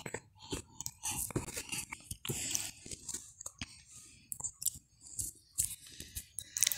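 A small child handling a stiff ABC picture book: irregular clicks, taps and crinkling as the pages are gripped and flipped.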